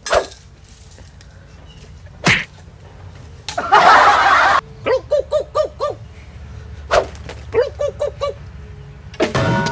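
Edited-in comedy sound effects: sharp smacks, a loud burst of noise about three and a half seconds in that cuts off abruptly, and two quick runs of short pitched notes.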